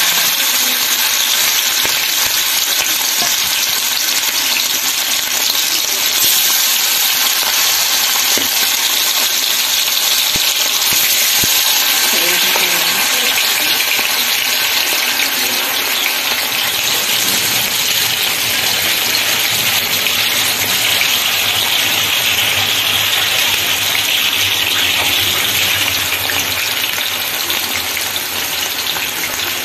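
Raw marinated chicken drumsticks deep-frying in hot oil in a pan, freshly added: a loud, steady sizzling hiss of the bubbling oil.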